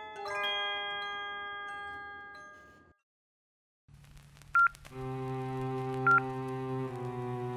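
Background music. Chiming bell-like notes fade out to a brief silence about three seconds in. A new piece then starts with held chords and a short high electronic beep that repeats every second and a half.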